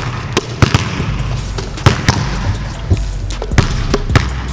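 Basketball bouncing on a court, a string of sharp, irregularly spaced thuds, over a hip-hop instrumental with a deep steady bass.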